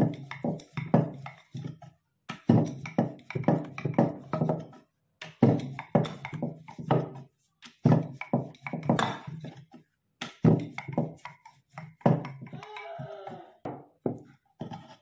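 Wooden rolling pin rolling bhatura dough on a wooden board, in quick back-and-forth strokes that come in runs with short pauses between them.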